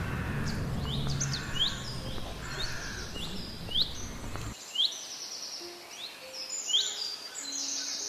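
Many birds chirping and calling together in a dense chorus of short, sharp, repeated downward chirps. A low rumble underneath cuts off suddenly about halfway through.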